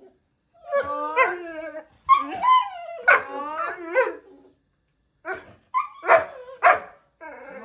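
A dog barking and whining in a string of vocal bursts that slide up and down in pitch, the impatient complaining of a dog made to wait for a treat.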